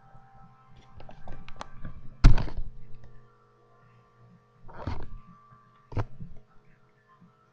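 Three dull thumps, the first about two seconds in and the loudest, with a few light clicks just before it, over a faint steady hum.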